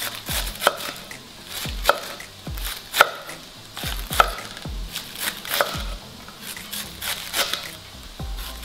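Knife shredding a head of fresh white cabbage on a wooden cutting board: repeated crisp slicing strokes, each ending in a knock of the blade on the board, the sharpest about once a second with softer cuts between.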